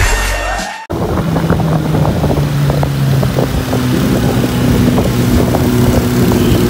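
Sport motorcycle engine running steadily under way, with wind buffeting the microphone. Under a second in, a brief snippet of voice and music cuts off abruptly and the riding sound begins.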